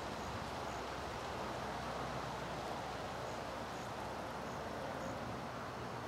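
Steady wind rustling through grass and leaves, with a few faint, short, high chirps scattered through.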